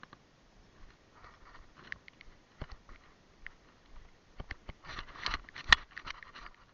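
Rustling close to the microphone with scattered sharp clicks and snaps. It grows busier about five seconds in, with one loud snap shortly after.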